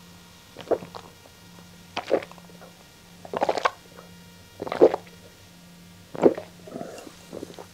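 A person gulping down a glass of drink in one go, close to the microphone: about five or six separate swallows, a little over a second apart.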